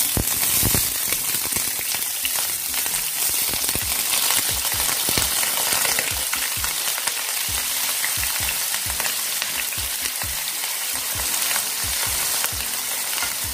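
Cubed brinjal sizzling in hot mustard oil in a frying pan. The sizzling starts suddenly as the pieces go in, then runs as a steady, dense crackle with many small pops.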